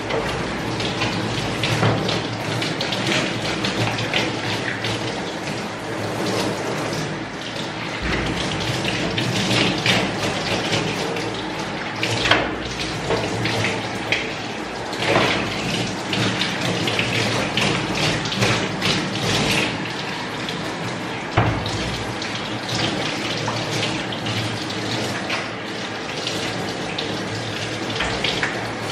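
Water from a handheld shower sprayer running steadily onto a dog's wet coat, splashing into a stainless steel tub.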